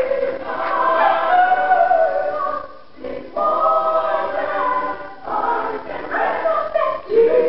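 Gospel choir singing, with a female soloist on a microphone leading over the choir. The phrases break off briefly about three seconds in.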